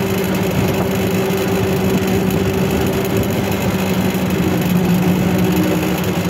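An engine on a fishing boat runs steadily at an even pitch while a homemade gill net hauler draws in the net.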